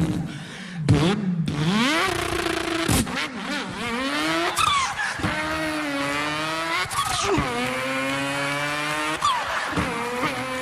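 A man imitating a racing car engine with his voice, revving up through the gears: the pitch climbs in several sweeps, each cut by a sudden drop like an upshift.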